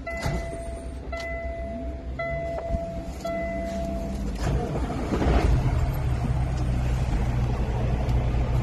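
Truck dashboard warning chime beeping about once a second, stopping about four seconds in as the Kenworth T680's engine is cranked and starts, then settling into a steady low idle.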